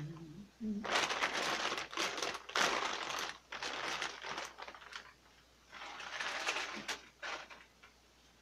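Clear plastic bag crinkling as it is handled, in two spells of rustling: a long one over the first few seconds and a shorter one a second later.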